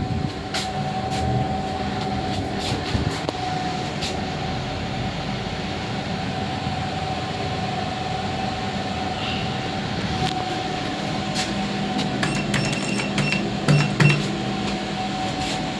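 IFE lift car travelling downwards: a steady running hum and rumble with a thin steady whine. A few clicks and short high beeps come about twelve to fourteen seconds in.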